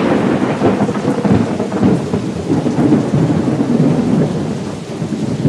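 Thunderstorm sound effect: thunder rumbling over steady rain, loud and unbroken.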